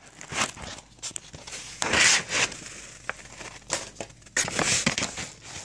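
Packaging from a mailed package being handled, crinkling and rustling in irregular bursts, loudest about two seconds in and again a little past four seconds, with a few light clicks.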